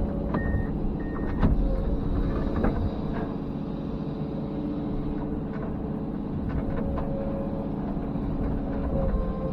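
Komatsu PC210 hydraulic excavator running steadily under load, its engine drone overlaid by a wavering hydraulic whine, with several sharp knocks and crunches of mobile home debris being torn apart. Two short high tones sound near the start.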